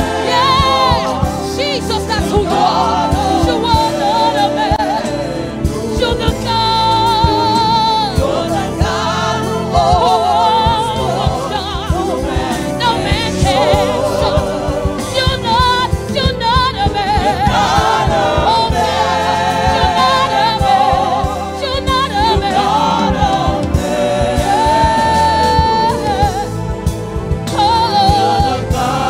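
Live gospel worship song: a female lead singer and a choir singing over band accompaniment, the voices wavering on held notes.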